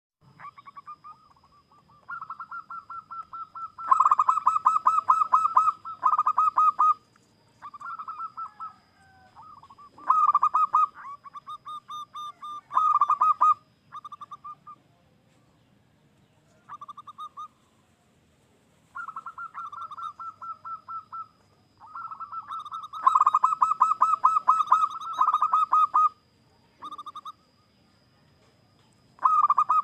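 Zebra dove singing: bouts of quick staccato cooing notes, each bout lasting from under a second to a few seconds, with short pauses between them. A faint steady high tone runs behind the song for much of the time.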